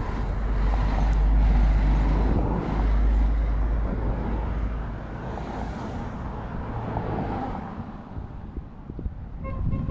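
Road vehicles passing close by in a line: a deep rumble, loudest in the first few seconds, drops away about halfway through, and lighter car passes follow. A car horn starts tooting right at the end.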